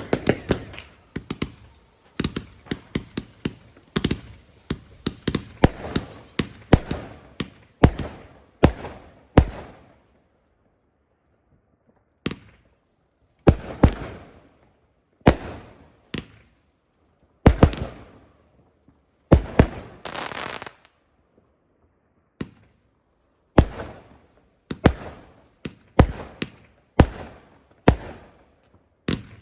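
Fireworks display: sharp bangs of bursting shells, each with an echoing tail. They come in a rapid volley for the first eight seconds, pause briefly around ten seconds in, then go on as single bangs every second or two, with one longer burst lasting about a second and a half around twenty seconds in.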